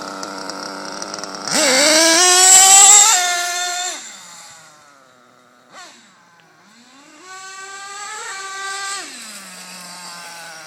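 Small nitro engine of an HPI Super Nitro RS4 RC car idling, then opened up about a second and a half in: a loud, rising high-pitched whine as the car speeds away, fading with distance. It revs hard again about halfway through, then drops back to a low idle near the end.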